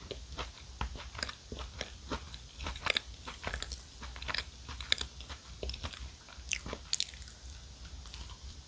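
Close-miked chewing and crunching of a chocolate cup dessert with a sandwich-cookie base: many sharp crunches and crackles, several a second, with wet mouth sounds in between.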